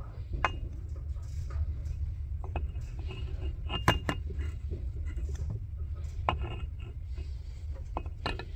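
Metal clinks and taps of hand tools and engine parts being handled, several sharp ones ringing briefly, the loudest a double clink about four seconds in, over a steady low rumble.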